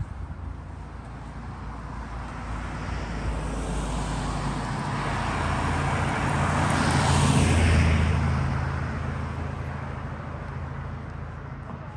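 A flatbed truck approaching along the road and driving past, its engine hum and tyre noise swelling to a peak about eight seconds in, then fading away.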